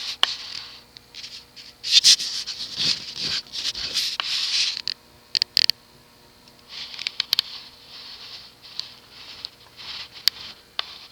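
Vintage Gulf Coast (TAT) 36-inch industrial ceiling fan running on low speed, a faint steady hum under irregular stretches of scratchy rustling and sharp clicks. The rustling is loudest about two to five seconds in and again from about seven to ten seconds in.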